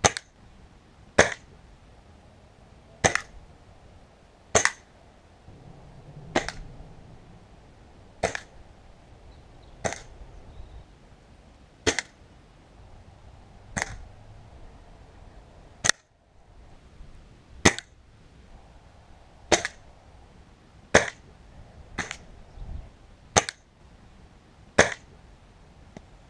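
A Gamo air rifle fired again and again, about fifteen sharp cracks roughly every one and a half to two seconds, in a string of shots at a target after a scope adjustment.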